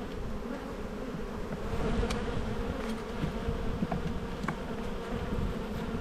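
Honeybees buzzing in a steady hum from an open hive, with a few light clicks about two thirds of the way through as a hive tool works between the wooden frames.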